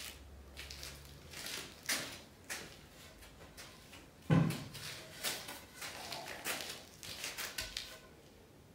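Wooden knocks and clatter from a long wooden board being picked up and handled. The loudest is a thud about four and a half seconds in, followed by a run of lighter knocks.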